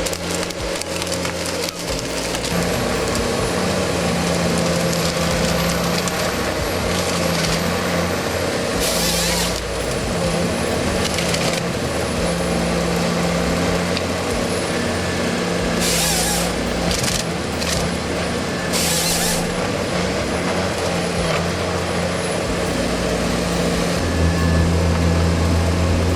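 Forestry harvester working timber: a steady diesel engine with wood cracking and splintering as the harvester head cuts and delimbs trees. Several short bursts of hiss come through.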